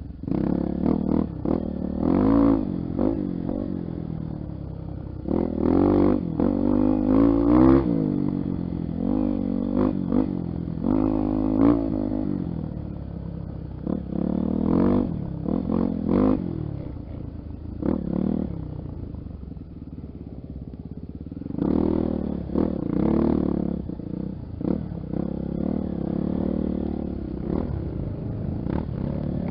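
Trail motorcycle engine, a Honda XR 250 Tornado single, revving up and falling back over and over as the throttle is opened and closed on a dirt trail. It eases off briefly past the middle, then revs up again, with some clatter.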